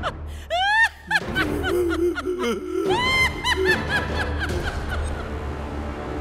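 A woman's high-pitched villainous cackle in two runs of quick 'ha-ha' bursts, the second run trailing downward in pitch, with a lower voice briefly in between. A steady low music drone runs underneath.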